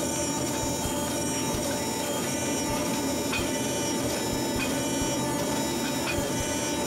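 Steady whir of a motor-driven workshop machine, running at an even pitch, with a few faint light ticks.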